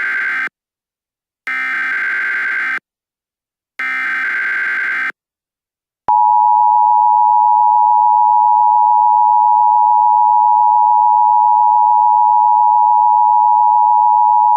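Emergency Alert System tones: the end of one SAME header data burst and two more short, buzzy data bursts about a second apart. About six seconds in comes the EAS attention signal, a loud steady two-tone beep held for about nine seconds.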